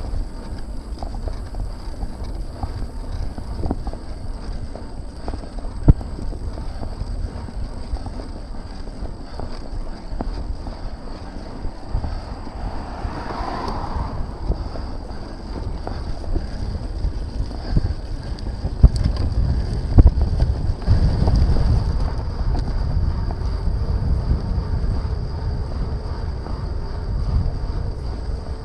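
Wind buffeting the action camera's microphone on a moving bicycle, a steady low rumble with road noise, and a few sharp knocks from jolts, one about six seconds in and two close together near twenty seconds. The rumble grows louder for a few seconds after the second pair of knocks.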